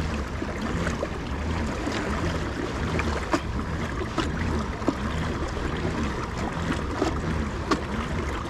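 Pedal-drive kayak under way: the pedal drive churns in a steady low rhythm while water washes along the hull, with scattered light clicks.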